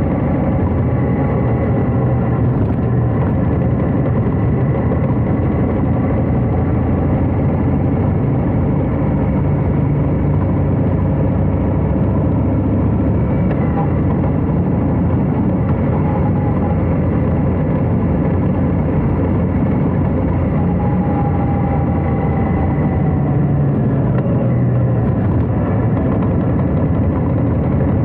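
Harley-Davidson Heritage Classic FLHC's V-twin engine running steadily as the motorcycle is ridden, its pitch rising and falling slightly with the throttle.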